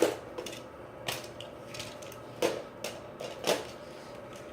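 Sharp plastic clicks and clacks from handling the parts of a Nerf Tri-Strike blaster, about five separate knocks spread irregularly, the loudest right at the start.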